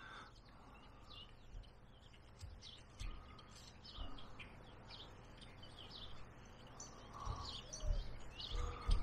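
Faint bird chirps: many short, quick calls repeating over a soft outdoor hiss. A few soft knocks come near the end as the carving is handled.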